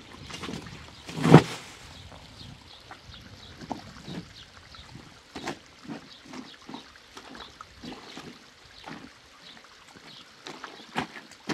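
Laundry being washed by hand: water sloshing and splashing in irregular strokes, with one louder thump about a second in.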